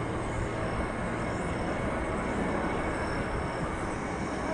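Boeing 737-800's CFM56-7B turbofan engines running at takeoff thrust during the takeoff roll, heard as a steady, even noise.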